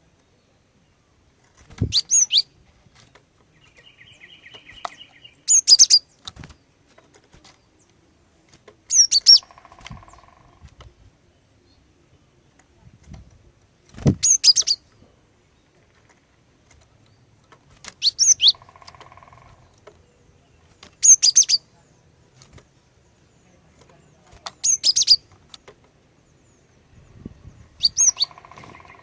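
Female glatik batu (cinereous tit) calling: short, high chirping phrases, eight in all, about every three to four seconds. Fainter buzzing sounds come between some of the calls.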